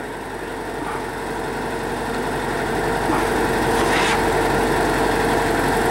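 A drill rig's engine and hydraulic drive running steadily, growing louder over the first three seconds and then holding. A short hiss comes about four seconds in.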